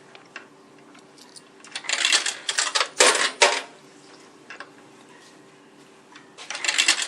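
Coins being fed into a vending machine's coin slot, clinking and rattling down through the coin mechanism in short clusters about two, three and six and a half seconds in, over a faint steady hum.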